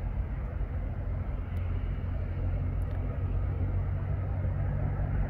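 Steady low drone of an idling engine, an even hum that holds one pitch throughout.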